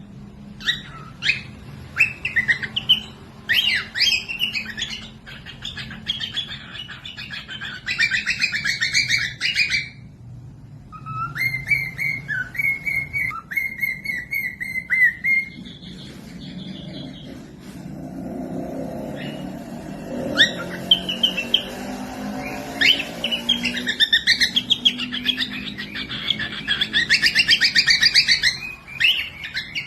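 Cockatiels chirping and calling over and over in quick, short chirps and warbling phrases, with a brief pause a little after ten seconds.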